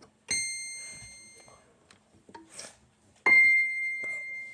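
Two single high notes on an electronic keyboard, struck about three seconds apart, each ringing and slowly fading; the second is louder.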